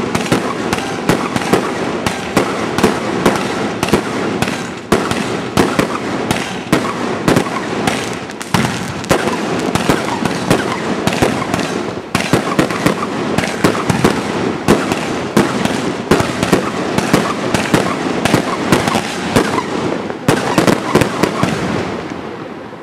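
Fireworks display: aerial shells bursting in quick succession, several sharp bangs a second over a continuous din of explosions.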